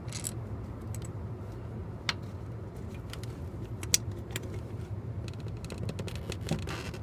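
Metal clicks and clinks of a 10 mm socket on the bolt holding the camshaft position sensor as it is worked loose: a few separate sharp clicks, the loudest just past the middle, then a quicker run of small clicks near the end, over a steady low hum.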